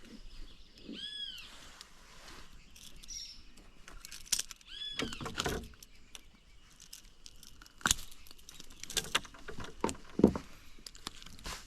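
A bird calling twice, each a short arched call, with scattered knocks and rustles of handling between.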